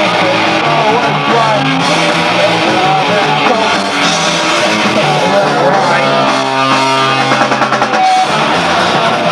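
A live punk rock band playing electric guitar, bass guitar and drum kit. About six seconds in, the band holds one chord over quick drum strokes, then comes back in full about two seconds later.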